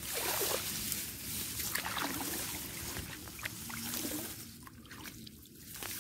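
Shallow muddy field water sloshing and splashing with scattered small drips, stirred by a person moving through it, easing off near the end.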